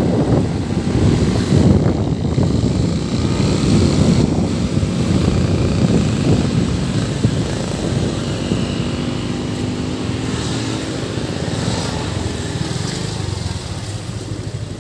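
Motorcycle riding with its engine running under wind and road rush, a clearer pitched engine note coming through for a few seconds past the middle. The noise eases off near the end as the bike slows toward a stop.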